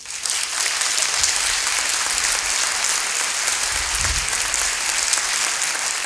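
Audience applauding, starting abruptly and holding steady.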